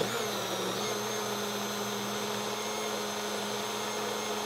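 Single-serve personal blender motor running steadily, blending fruit and almond milk into a smoothie. Its pitch rises slightly and settles about a second in.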